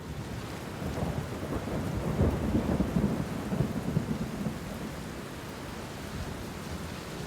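Steady rain with a low rumble of thunder that swells about a second in, rolls for a few seconds and then fades back to the rain.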